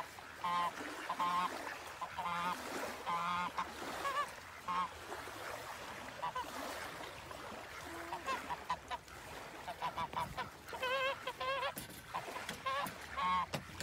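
Domestic goose honking, a run of short honks about a second apart, a lull in the middle, then more honks toward the end.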